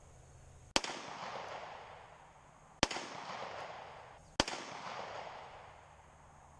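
Three gunshots, about two seconds and then a second and a half apart, each a sharp crack followed by an echo that rolls away over a second or so.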